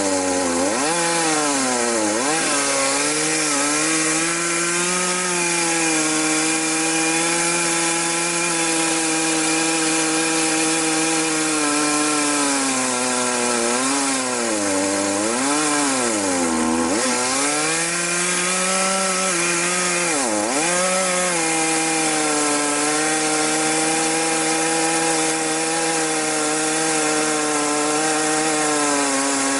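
Chainsaw ripping a log lengthwise, running at high speed under load through a long cut. Its pitch dips and recovers several times as the engine bogs in the wood, most deeply about halfway through.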